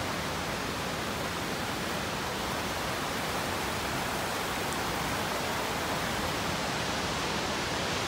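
Steady rush of a tall waterfall, with the stream below it running over boulders.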